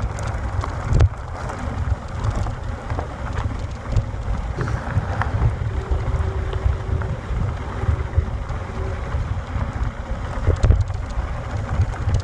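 Wind buffeting the microphone in an uneven low rumble, with scattered knocks and rattles.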